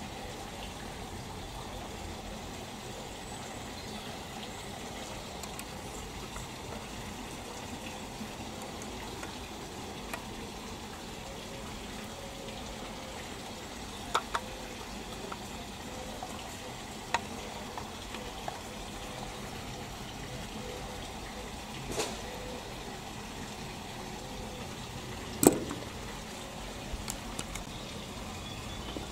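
Steady background hiss with a few scattered clicks and knocks as a Mamod model steam traction engine is handled on a wooden bench. The loudest knock comes about 25 seconds in.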